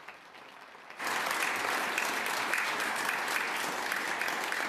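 A small group of people applauding by hand-clapping, faint at first and much louder from about a second in.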